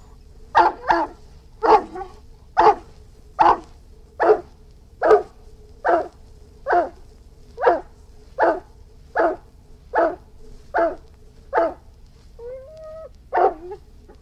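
Irish wolfhound barking over and over at an even pace, a little more than one bark a second. Near the end it gives a short whine, then one last bark.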